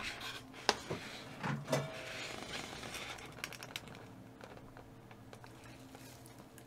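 Quiet eating and handling sounds: a few light clicks and knocks in the first two seconds, a soft rush of noise, then faint room tone.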